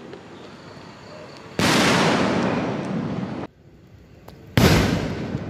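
Aerial firework shell bursting overhead: two loud bangs about three seconds apart, each followed by a long fading rumble.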